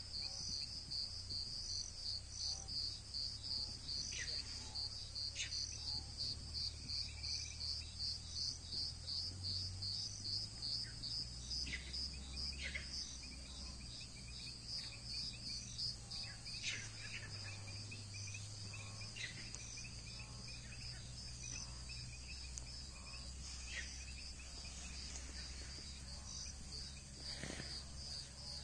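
Insects chirping in a fast, even pulse, about three chirps a second, softening after about thirteen seconds.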